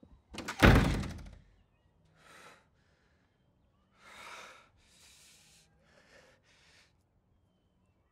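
A loud bang about half a second in, then a man's several heavy, breathy exhalations and sighs of distress.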